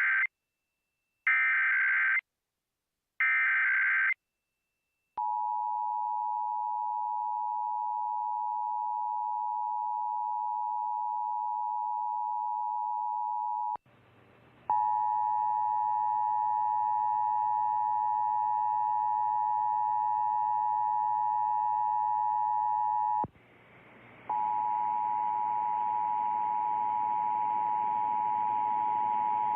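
Emergency Alert System broadcast test: three short bursts of screechy digital header tones (the SAME data header), then the two-tone attention signal, a steady shrill two-note tone. The tone breaks off briefly about 14 s and again about 23 s in, each time coming back with added hiss and hum.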